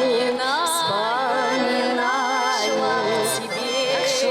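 Women's vocal trio singing a slow, mournful Russian folk-style song over accompaniment, drawing out long notes with a wide vibrato.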